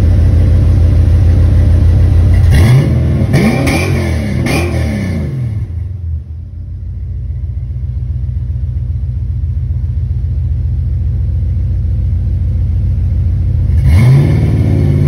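Holden 304 V8 running through a custom dual 2.5-inch mild steel exhaust with an X-pipe and twin aero chamber mufflers, heard from under the rear of the car. It idles, is blipped several times in quick succession about two and a half seconds in, settles back to idle, and is revved again near the end.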